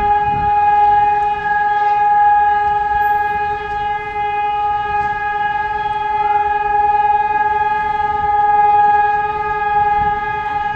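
Tsunami warning siren sounding one loud, steady tone that holds its pitch throughout, swelling and easing slightly in loudness: the alarm signal of a tsunami alert.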